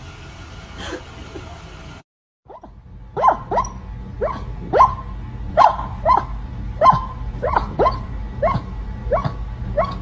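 A dog barking repeatedly, a dozen or so short, sharp barks at an even pace of a little more than one a second, starting about three seconds in.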